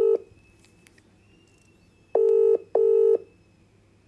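Ringback tone of an outgoing WhatsApp call, playing through the phone's speaker while the other phone rings unanswered. The tail of one ring ends at the very start, and a double beep of two short, steady, low tones about half a second apart comes about two seconds in.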